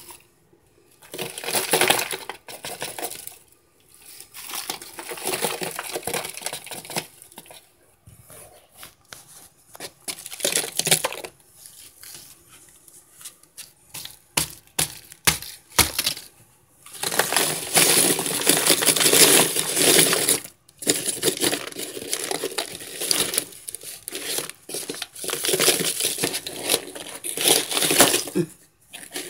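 Dry crunching and crackling of microwaved cornstarch chunks, in irregular bursts. The longest and loudest stretch comes a little past the middle.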